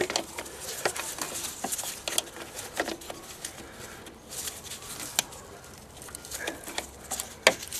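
Needle-nose pliers working a plastic quick-connect fuel hose fitting on a diesel fuel filter to release it: scattered clicks and scrapes of metal on plastic, with a sharper click near the end.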